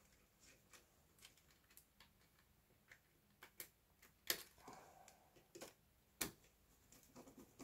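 Faint, scattered clicks and taps of small plastic and metal electrical parts being handled and fitted on a wiring board, with a few sharper clicks in the second half.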